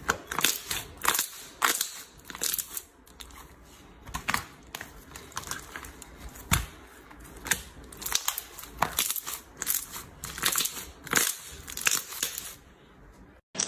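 Clear slime being squeezed and poked, giving irregular sharp clicks and pops several times a second. It cuts off suddenly just before the end.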